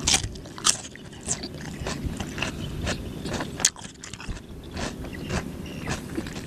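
Crisp crunching and chewing of raw cucumber close to the mouth: many sharp crunches, loudest just at the start and again about a second and a half past the middle.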